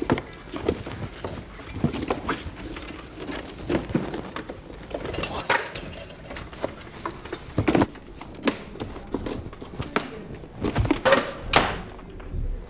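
Handling noises: scattered knocks, clicks and light rattles as an electric guitar is moved about in its lined case and hands press on the wooden casing of an upright piano, with a few louder knocks, the loudest about eleven seconds in.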